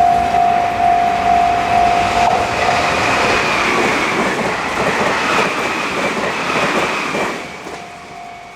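A Japanese level-crossing warning bell rings about twice a second (the "kan kan") while a train runs over the crossing. The train's rumble and clatter, with a high whine, swell up and drown the bell about two seconds in. They fall away about seven seconds in, and the bell is heard again as the train clears.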